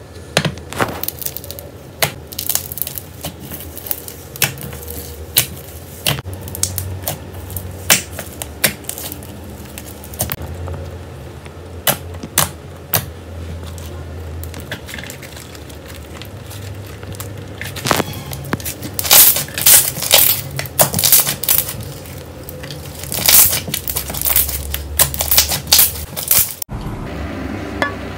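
Slime being squeezed and pressed by hand, giving irregular sharp pops and crackling clicks that come in louder, denser clusters in the second half, with a cut to a different clip near the end.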